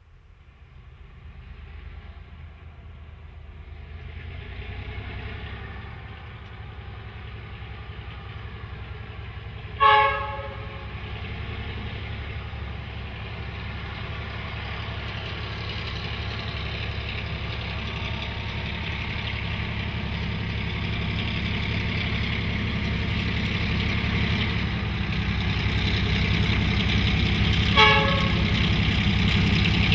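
Y class diesel-electric locomotive approaching, the low rumble of its GM two-stroke diesel growing steadily louder. It sounds two short horn blasts, about ten seconds in and again near the end.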